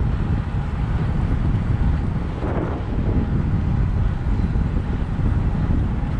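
Wind rushing over the microphone of a camera riding on a moving road bike: a steady low buffeting rumble with no letup.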